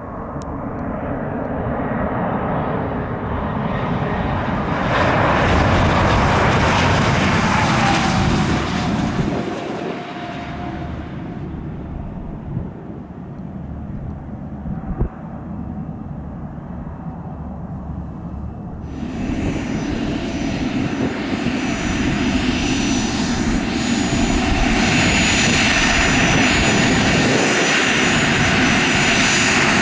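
Dassault Falcon 7X trijet landing: its turbofan engines grow louder on approach and pass with a falling whine, then the rollout rumble dies down. About two-thirds of the way in, the sound switches abruptly to another business jet's turbofans running close by with a steady high whine as it taxis.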